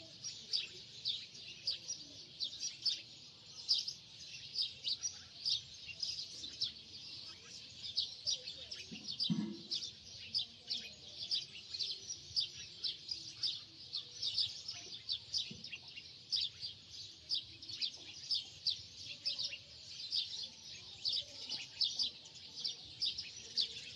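Small birds chirping continuously, many short high chirps a second.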